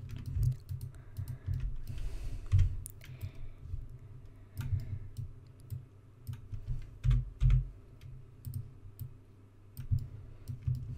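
Irregular clicking of computer keyboard keys and a mouse during Blender shortcut-driven 3D modelling, with some dull low thuds among the clicks.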